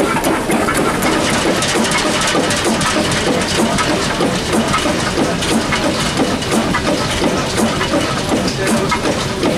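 Three-cylinder Stork Hesselman engine running steadily, with a dense, continuous clatter of ticks and knocks from its valve gear and moving parts.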